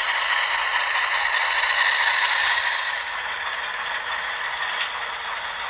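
HO scale model of a Delaware & Hudson Alco PA diesel locomotive running on the layout track: a steady rattling hiss from its wheels and drive that eases off about three seconds in as it comes to a stop.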